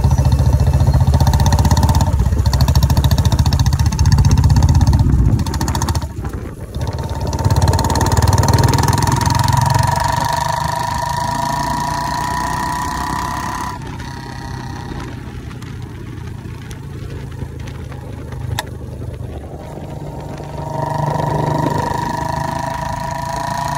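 Royal Enfield Bullet's single-cylinder engine, heard up close at the silencer while the bike is ridden. It thumps hard under acceleration, dips briefly about six seconds in, and pulls again. It then eases off into a quieter stretch with one sharp crack, and picks up again near the end.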